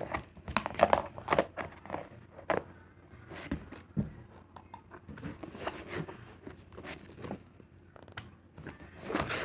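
Plastic slime container being handled and pressed shut, with irregular crinkling and sharp clicks of the lid.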